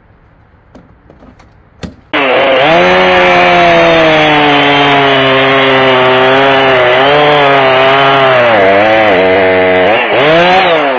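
Chainsaw cutting through a 20-inch oak log at full throttle, coming in suddenly about two seconds in. Its pitch sags and recovers as the chain bites under load, dipping and wavering near the end.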